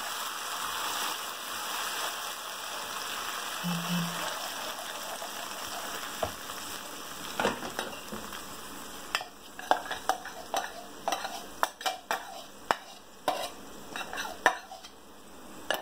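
Red chilli paste and garlic sizzling in hot oil in a frying pan as a wooden spoon stirs it, the hiss thinning out after several seconds. From about nine seconds in, a run of sharp taps and knocks against the pan as the spoon and the grinder jar are worked against it.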